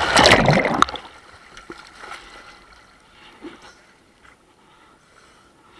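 Water splashing and rushing over the microphone as a person goes into the water, loud for about the first second. Then only faint, small sloshing of water near the surface.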